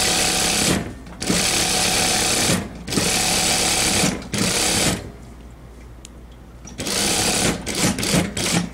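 Unicorn industrial sewing machine stitching a seam in a series of runs of about a second each with brief stops between, a longer pause about five seconds in, then shorter stop-start bursts near the end.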